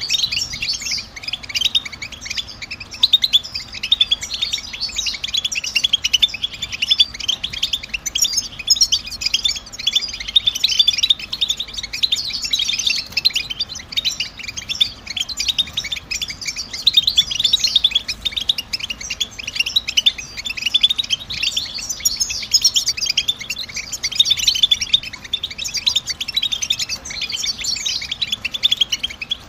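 Several European goldfinches twittering together: a dense, unbroken stream of quick, overlapping high chirps. This is the goldfinch chatter that keepers play to set a caged goldfinch singing.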